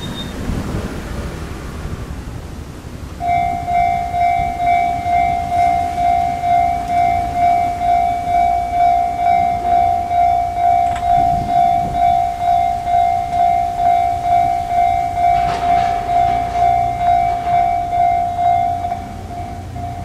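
Japanese railway level-crossing warning bell starting about three seconds in: an electronic clanging at about two strikes a second, turning quieter near the end. Before it, a low rumble of road traffic.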